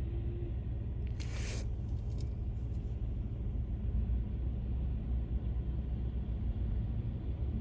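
Steady low rumble of road traffic, with a brief hiss of car tyres on wet pavement about a second in.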